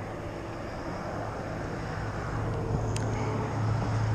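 A steady low engine hum that grows louder near the end, over an outdoor noise haze, with one light click about three seconds in.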